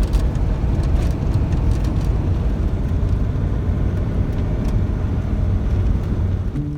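Motorhome driving, with a steady low rumble of engine and road noise and a few light rattles.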